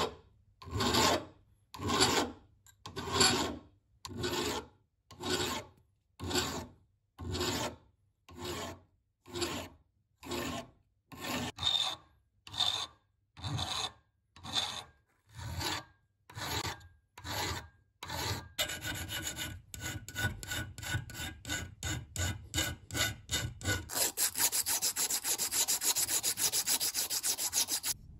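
A round hand file rasping on the metal of an antique nail puller part clamped in a vise. Slow, even strokes come about once a second, then quicken to several short strokes a second after about 18 seconds and to a rapid, continuous rasping for the last few seconds.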